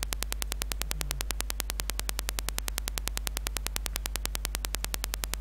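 Faulty microphone noise: a steady low hum overlaid with a rapid, evenly spaced clicking buzz.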